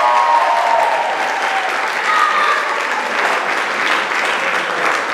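Audience applauding, with a few shouted cheers or whoops heard over the clapping in the first second and again a little after two seconds.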